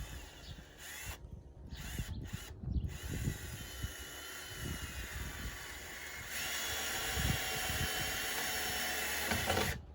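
Power drill driving screws into wooden wall boards: a steady motor whine that starts about three seconds in, gets louder partway through and stops just before the end, after some knocking from the boards being handled.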